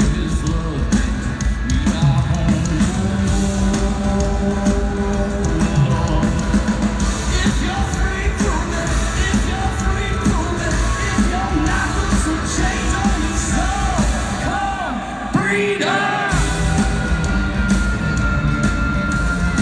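Live band playing loudly in an arena, with a singer over a steady drum beat and heavy bass; the bass drops out for a moment about three-quarters of the way through.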